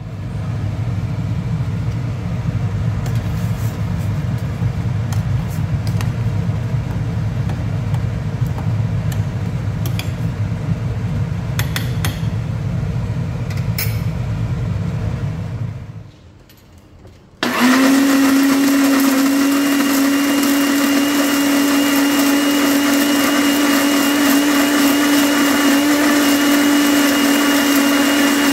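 White countertop electric blender grinding red chilli paste: a rough, low-pitched run for about sixteen seconds, a brief stop, then the motor restarts and runs at a steady, higher whine.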